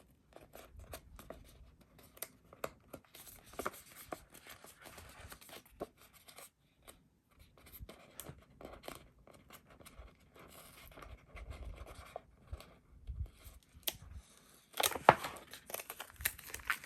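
Paper and sticker sheets being handled: light rustling, scraping and small clicks, with a louder rustle near the end.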